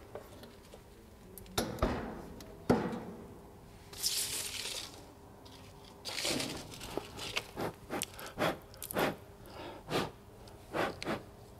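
Wood-burning stove's glass-fronted door swung shut and latched against its newly fitted rope seal, with a sharp knock about two and a half seconds in. Scattered rustling and light clicks of handling follow in the second half.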